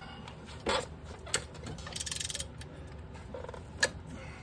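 Ratchet of a hand torque wrench clicking as it tightens the hub assembly's mounting nuts. There is a quick run of rapid clicks about two seconds in, with a few single sharp clicks around it.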